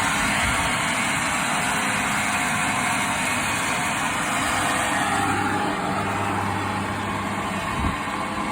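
LPG boiler running, a steady loud rushing noise with faint shifting hums in it. This is the noise the owner reports as a problem that has appeared since installation, when the boiler ran smoothly at maximum water flow and gas rate.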